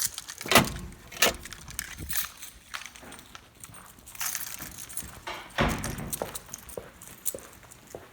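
Footsteps and knocks on a hard floor. A few sharp knocks and a heavy thump come in the first two seconds and again about five and a half seconds in, followed by lighter, evenly spaced taps.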